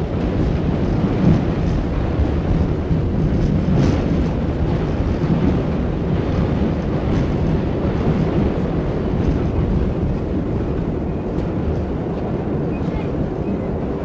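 Subway train running on elevated track: a steady low rumble with a few faint clicks.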